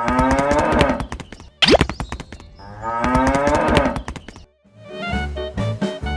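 A cow mooing twice in long drawn-out calls, with a short, sharp rising sweep between them. Music starts near the end.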